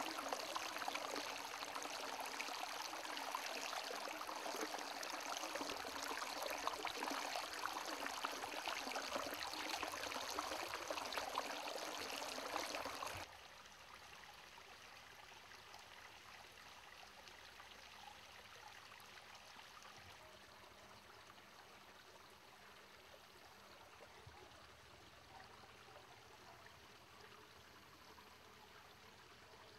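Shallow creek water rushing over and between mossy rocks, a steady close splashing. About thirteen seconds in, it cuts abruptly to a much fainter, steady flow of water.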